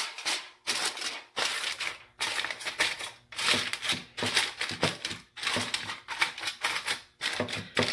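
Aluminum foil crinkling and crackling as it is laid over a baking pan and pressed and crimped down by hand, in a run of short crackly bursts with brief pauses between them.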